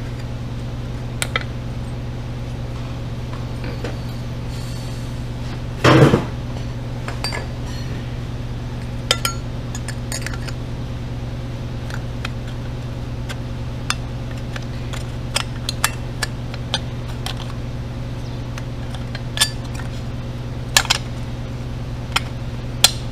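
Light metallic clinks and taps of aluminum intake funnels knocking against the aluminum plate as they are twisted and slid down into the carburetors, with one louder knock about six seconds in, over a steady low hum.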